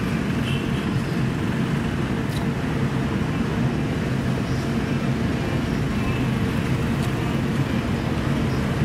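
Steady street traffic: an even, low rumble of vehicle engines with no single vehicle standing out.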